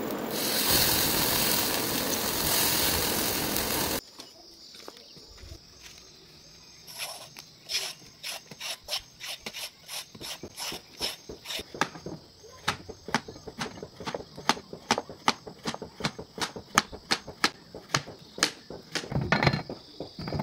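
Loud, steady sizzling of bottle gourd slices frying on a stone slab over a wood fire, which cuts off suddenly about four seconds in. After a short quiet spell comes a kitchen knife cutting bottle gourd on a plastic cutting board: crisp taps two or three a second that grow quicker and louder toward the end.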